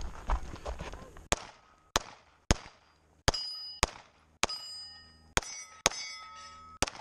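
Pistol fire on steel targets: nine sharp shots starting about a second in, spaced half a second to a second apart. Several are followed by the ringing clang of a steel plate being hit.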